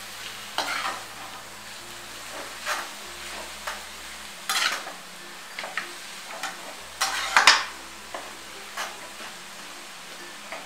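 Noodles and vegetables being tossed in an aluminium kadai with a perforated steel skimmer: irregular scrapes and clinks of the spoon against the pan, over a faint steady sizzle of low-flame stir-frying. The loudest clatter comes about seven seconds in.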